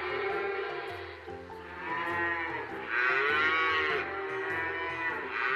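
Cattle mooing: long drawn-out moos, the loudest about three seconds in, and another starting near the end.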